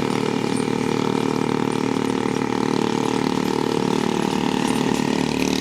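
Bajaj Pulsar N250's single-cylinder engine running steadily at low, even revs.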